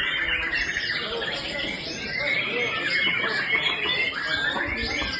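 Caged white-rumped shamas singing together on contest hanging posts, a dense, unbroken chorus of rapid chirps and whistles.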